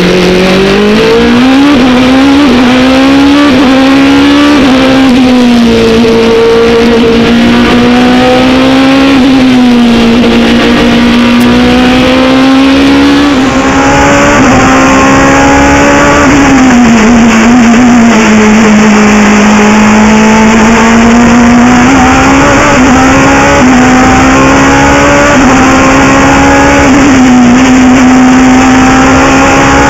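Race car engine at full throttle, heard loud and close from the cockpit. Its pitch climbs, drops back at each gear change or lift, and climbs again, over and over.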